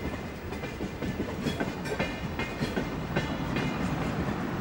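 Metropolitan express train coaches rolling past at speed, a steady rumble with wheels clicking irregularly over the rail joints.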